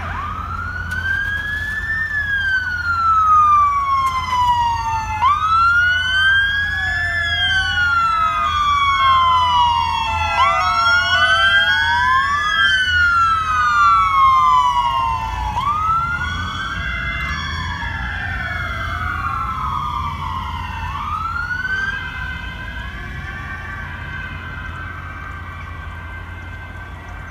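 Sirens of Danish police cars and an ambulance wailing together, several slow rising-and-falling sweeps overlapping out of step, over a low traffic rumble. They grow fainter over the last dozen seconds.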